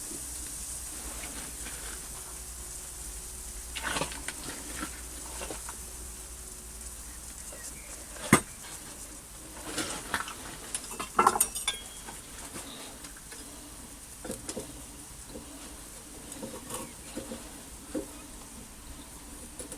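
Scattered metallic clinks and knocks, the loudest about a third of the way in and just after the middle, over a low steady background with a faint sizzle, as of tools handled around a crucible of molten aluminium.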